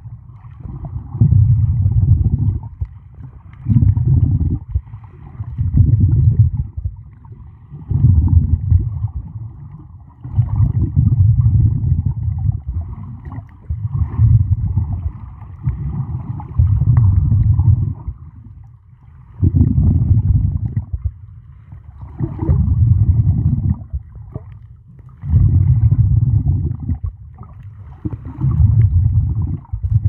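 Muffled water sloshing and rumbling around an underwater camera carried by a swimming snorkeler. It surges in rhythmic bursts about every two to three seconds.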